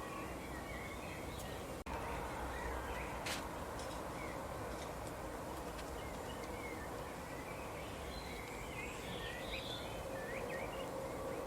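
Small birds chirping in short, scattered calls over a steady background hiss, with a sharp click about three seconds in.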